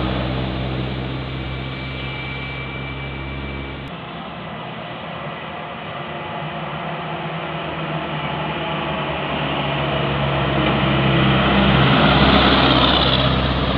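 A medium tour bus's engine passing by and fading away over the first few seconds, then the road noise and engine hum of another bus building as it approaches, loudest about twelve seconds in.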